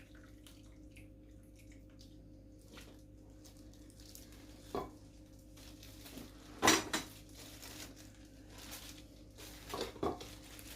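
Kitchen dishes and utensils knocking and clinking a few times, with the sharpest knock about two-thirds of the way in, over a steady low hum.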